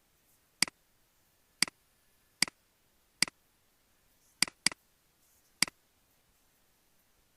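Computer mouse clicking, seven sharp single clicks about a second apart, with a quick double-click about four and a half seconds in.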